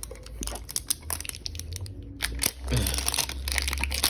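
Plastic shrink wrap being torn and crinkled off a Pokémon mini tin, an irregular run of crackles that grows busier about halfway through.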